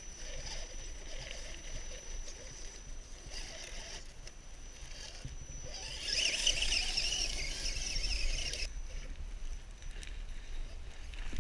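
Radio-controlled rock crawler truck crawling over rocks and gravel: its electric motor and gears give a thin, steady high whine, and the whine and scrabbling grow louder for a couple of seconds around the middle as it climbs.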